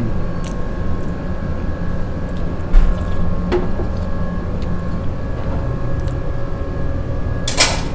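Steady hum and low rumble of a kitchen fan or ventilation, with a single thump about three seconds in and a brief rustle near the end.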